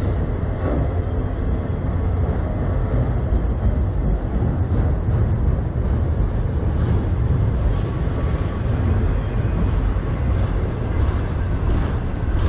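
Autorack freight cars rolling past close by: a steady, loud rumble of steel wheels on rails.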